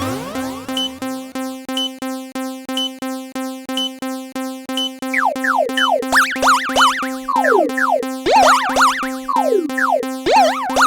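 Synthesized railroad-crossing alarm from a cartoon: an electronic bell ringing at one steady pitch, about two and a half strokes a second. From about five seconds in, a run of quick falling whistle-like swoops plays over it.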